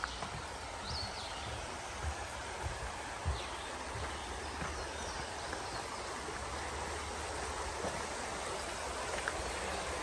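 Shallow mountain creek running over rocks: a steady rush of water. A few footsteps thud on the trail in the first few seconds, and a brief high chirp comes about a second in.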